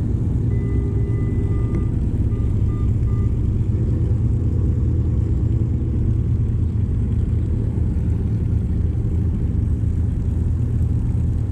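Engine running with a steady low rumble, with a few faint short beeps in the first few seconds.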